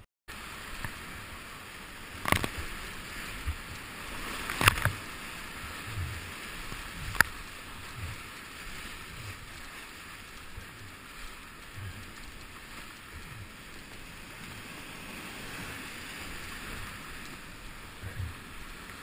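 Rushing whitewater of a big rapid in high flood, heard from a kayak running it: a steady rush of breaking waves, with three sharp splashes in the first seven seconds and low thumps about every second.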